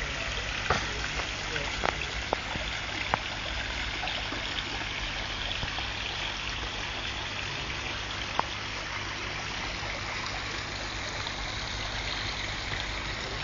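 Small garden-pond waterfall, water running steadily over rocks into the pond. A few sharp clicks sound in the first three seconds and once more about eight seconds in.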